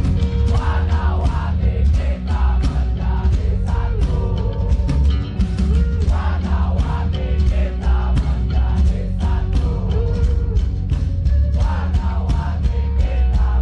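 Rock band playing electric guitars, bass and drums with a steady beat, and a voice singing over it at several points.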